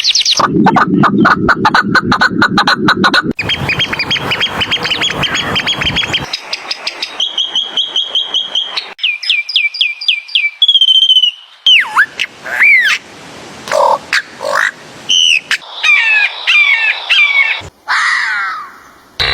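A run of different animal calls, mostly birds, one kind after another every few seconds: fast trills and rapidly repeated notes first, then whistled notes that slide up and down, and short separate calls.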